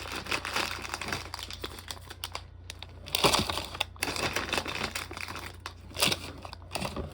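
Plastic candy wrappers crinkling as individually wrapped candies are handled and packed into a snack organizer, with louder bursts of rustling about three seconds in and again around six seconds.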